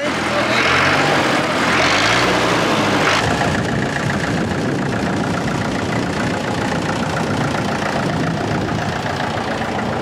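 The diesel engine of an IH McCormick 276 tractor running. Its pitch rises and falls over the first three seconds, then it settles to a steady run.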